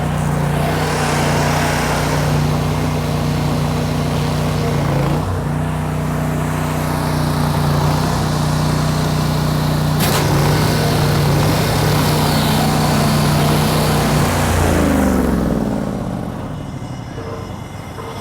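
Pressure washer engine running steadily under load with a hiss of water flow, pumping antifreeze through the system to winterize it; about 15 seconds in it is shut off and winds down, its pitch falling away.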